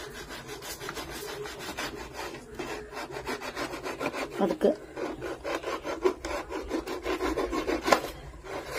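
Knife blade sawing back and forth along the seam of a red plastic coin bank, a quick run of scraping, rasping strokes.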